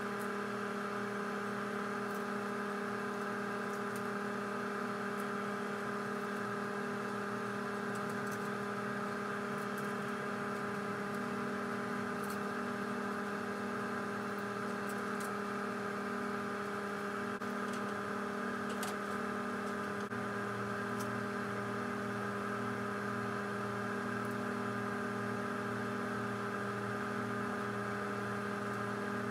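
Steady electric hum and whir of a running motor or fan, unchanging throughout, with a few faint light clicks over it.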